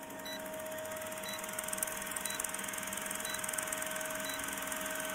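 Old film-projector sound effect: a steady mechanical whir with fast clatter, and a short high beep once a second marking each number of a film-leader countdown.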